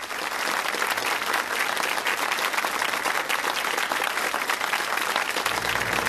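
Studio audience applauding steadily, many hands clapping at once. Music comes in under the applause near the end.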